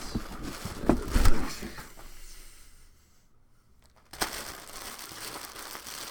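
Packaging crinkling and crumpling as a box is unpacked by hand, with a few sharp knocks in the first two seconds and a short quiet pause about three seconds in.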